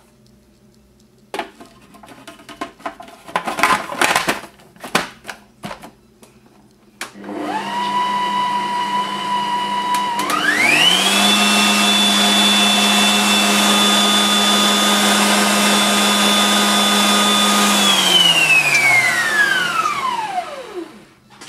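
A few knocks and clicks, then a Bosch kitchen machine's food processor motor starts about seven seconds in at a low speed, steps up to a higher speed with a rising whine a few seconds later, and runs steadily while blending the hummus mixture to work the spices in. Near the end it is switched off and spins down with a falling whine.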